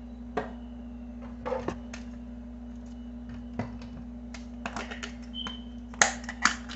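Scattered light clicks and knocks of spice containers being handled and set down. A quick run of clicks comes about two-thirds in and the loudest knock near the end, over a steady low hum.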